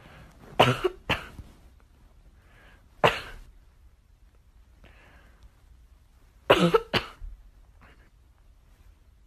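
Short, harsh cough-like bursts in small groups: three within the first second and a half, one about three seconds in, and a quick run of three at about six and a half seconds, with fainter ones between.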